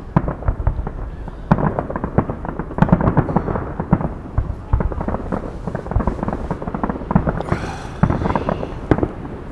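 Fireworks display going off continuously: a dense run of bangs and crackles over deep booms, with a brief higher crackling hiss about three-quarters through.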